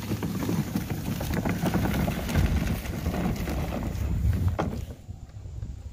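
Hart 40V brushless cordless push mower running with its deck set low, passed over brick pavers to suck up dried grass clippings, with wind buffeting the microphone. The sound drops away sharply about five seconds in.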